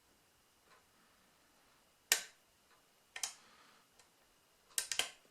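Sharp metal clicks from a lock pick working the pin stack of a pin-tumbler rim cylinder held under tension, as pins are picked and set: one click about two seconds in, a pair about a second later, then a quick cluster of three or four near the end.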